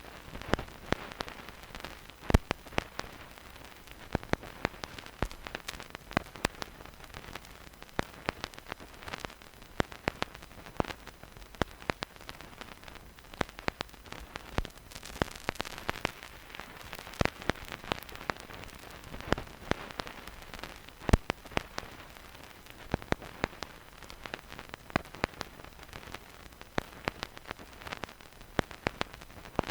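Vinyl record surface noise with no music: a steady soft hiss with frequent, irregular pops and crackles of the stylus in the groove.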